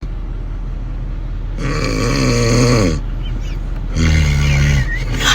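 Loud snoring: two long, drawn-out snores about a second apart, each trailing off slightly lower in pitch, over a steady low hum.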